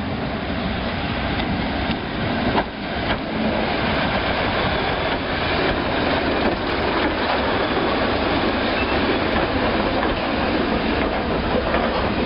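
Green first-generation diesel multiple unit passing close by, a steady mix of diesel engine and wheel noise on the rails, with a couple of knocks about two and a half to three seconds in.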